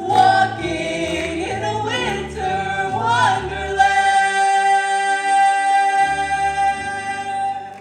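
High school choir singing the closing bars of the song, over low bass notes, then holding a long final chord from about four seconds in that cuts off just before the end.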